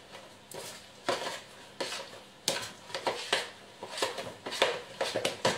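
A utensil stirring a thick oat-and-egg batter in a plastic mixing bowl, knocking and scraping against the bowl's sides about every half second.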